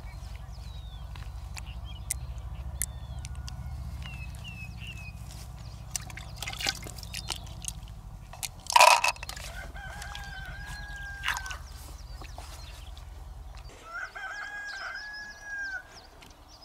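A rooster crowing twice, about nine seconds in and again near the end, each crow ending on a long held note. Small birds chirp faintly and light clicks come and go before the first crow.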